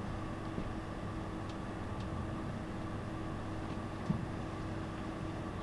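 Steady low hum of a room's ventilation or air-conditioning, with a few faint ticks and a soft thump about four seconds in.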